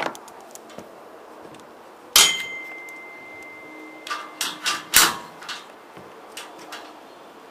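Metal climbing hardware being handled: a sharp clang about two seconds in that rings on as a steady tone for about two seconds, then a quick run of clicks and knocks, with a few fainter clicks after it. These are the carabiners and auto belay devices being clipped onto the gantry.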